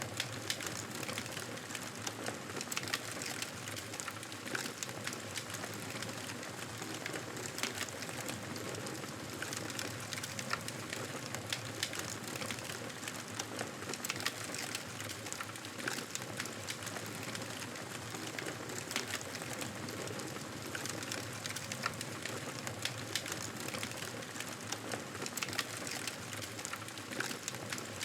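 Wood fire crackling, with many small sharp pops over a steady soft hiss.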